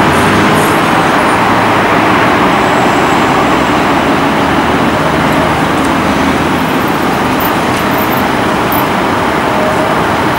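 Steady road traffic: several cars passing on a busy multi-lane city street.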